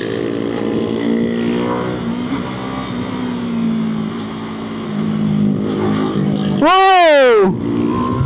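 Motorcycle engine running at a fairly steady speed. About six and a half seconds in comes a loud shouted "whoa!", rising then falling in pitch.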